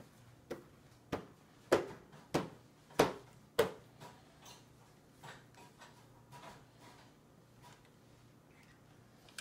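A baby's hand slapping a plastic high-chair tray: six sharp knocks about every half second, then a few fainter taps.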